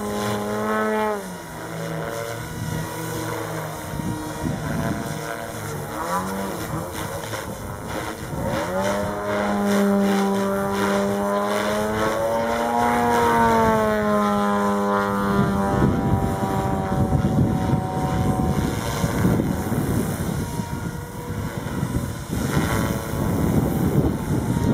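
Radio-controlled model helicopter flying close: a whine whose pitch dips and rises as it manoeuvres. After about 16 s this gives way to a louder, rougher rushing of the rotor blades.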